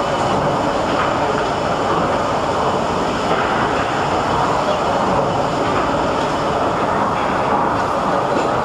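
Worthington-Simpson vertical triple-expansion steam pumping engine running steadily, the loud continuous mechanical noise of its flywheel, cranks and reciprocating gear in motion.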